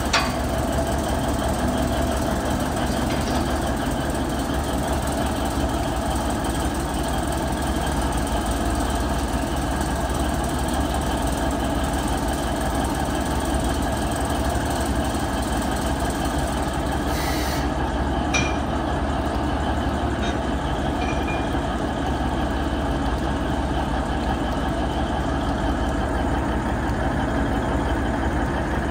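Alishan Forest Railway diesel locomotive idling steadily while standing, with a couple of short knocks about two-thirds of the way through.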